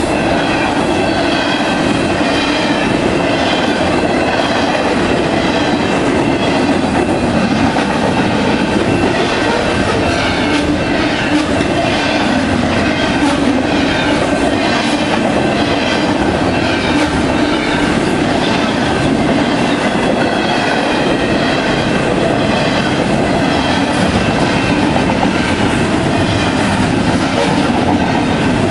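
Double-stack intermodal train's well cars rolling past at speed: a steady, loud rumble of steel wheels on the rails, with the clatter of wheels over the track joints.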